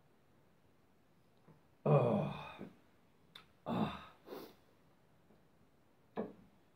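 A man's voice giving a long, loud sigh about two seconds in, then a shorter one, with a brief breathy sound near the end: contented "ahh"s after a swig of ale.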